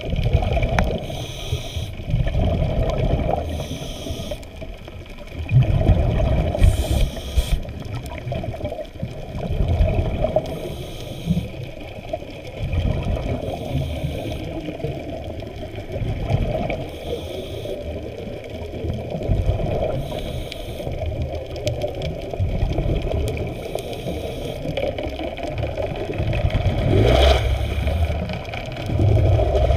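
Underwater sound picked up by an action camera in its waterproof housing: a steady low churning of water moving past the housing, with a hissing swell every two to three seconds and a brief rising whoosh near the end.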